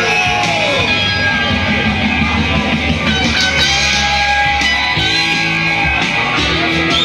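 Loud music with guitar, playing steadily.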